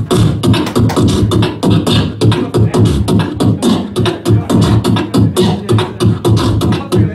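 Solo beatboxing through a handheld microphone and PA: a fast, steady rhythm of mouth-made bass-drum kicks with snare and hi-hat clicks between them.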